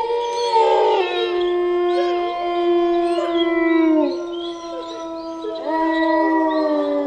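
Wolves howling together: several long, held howls at different pitches overlap, with short higher yips above them. One howl slides down and ends about four seconds in, and another starts a little later and falls in pitch.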